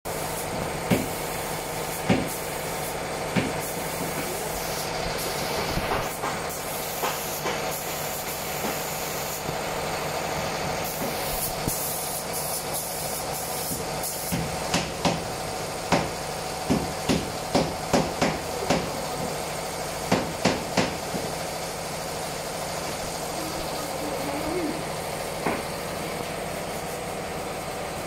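Furniture-workshop din: a steady machine hum with sharp knocks like hammering, a few near the start and a quick run of about a dozen in the middle, and a couple of stretches of hissing.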